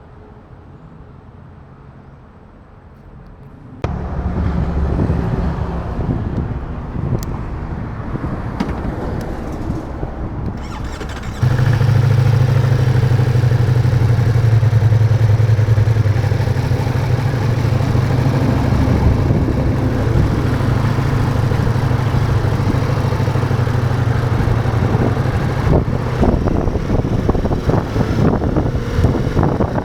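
Ducati Multistrada V4's 1158 cc V4 engine starting suddenly about four seconds in and running steadily, then stepping up to a louder steady run from about eleven seconds in.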